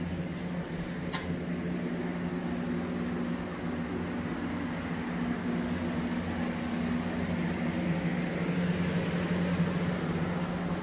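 Steady machine hum with several fixed pitches, like a fan motor running, and a faint click about a second in.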